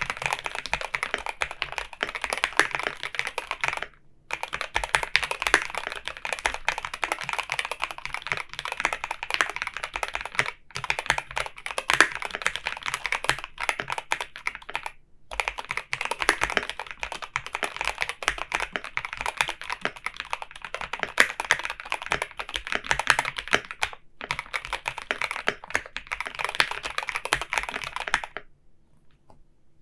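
Epomaker Shadow-X mechanical keyboard with Gateron Pro Yellow linear switches being typed on: a fast, continuous run of keystrokes broken by a few brief pauses, stopping near the end.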